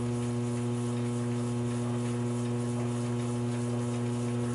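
Sherline motor driving a Taig micro lathe, running fairly slow with the chuck spinning: a steady electric hum.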